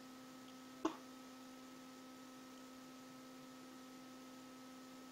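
Faint steady electrical hum, with a single short click about a second in.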